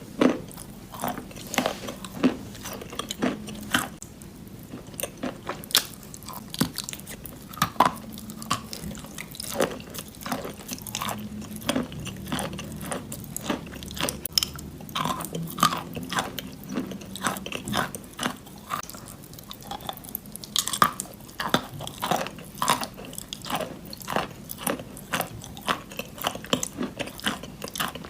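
Wet chalk in white clay paste being bitten and chewed close to the microphone: many irregular sharp crunches with chewing between them.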